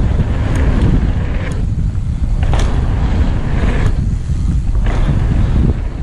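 Mountain bike descending a dirt trail: a steady rumble of tyres and wind buffeting the camera microphone, broken by several sharp clicks and rattles from the bike jolting over bumps.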